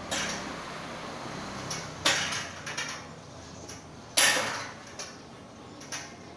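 Hard objects being handled and set down: three sharp clacks about two seconds apart, each ringing briefly, with softer clicks between them.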